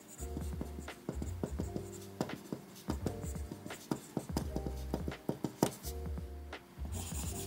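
A Faber-Castell TK-Fine Vario L 0.5 mm mechanical pencil writing on paper: the lead scratching and ticking in many short strokes as characters are written. Background music with steady bass notes plays under it.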